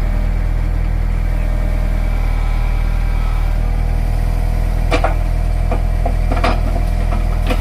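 Mini excavator's diesel engine idling steadily, with a few sharp metallic knocks about five seconds in and near the end.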